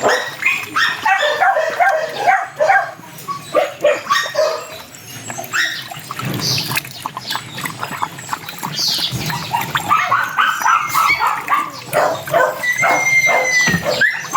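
Stray dogs yipping and barking in quick, repeated short calls, mixed with whimpering; near the end a drawn-out, slightly falling whine.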